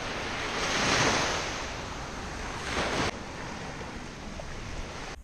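Small Baltic Sea waves washing up on a sandy beach, with wind on the microphone. The wash swells to a peak about a second in, then breaks off suddenly about three seconds in and gives way to a quieter, steadier surf.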